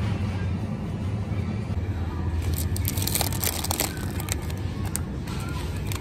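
Plastic food packaging crinkling as it is picked up and handled, a burst of crackles from about two and a half to four seconds in. Underneath is a steady low hum, with music in the background.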